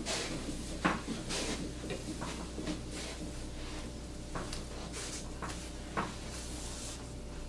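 Manual wheelchair being wheeled across the floor: scattered light clicks and knocks from its frame and wheels, with a sharper knock about a second in and another near six seconds, over a steady low room hum.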